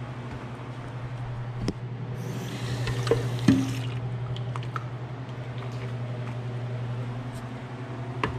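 Kitchen faucet running briefly into a plastic measuring cup, starting about two seconds in and stopping about two seconds later, with two sharp knocks of the cup near the end of the flow. A steady low hum sits underneath, and a few light clicks follow.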